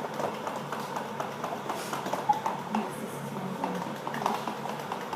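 Irregular light taps and clicks, a little over one a second, over a low background hum.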